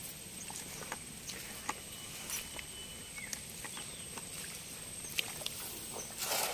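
Faint scattered clicks and scuffs as a weighted cast net is carried and readied, then near the end a short splash as the thrown net lands on the river.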